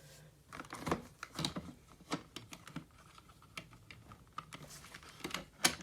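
Scattered, irregular light clicks and taps of hands handling hard plastic or metal parts, with one sharp, louder click near the end.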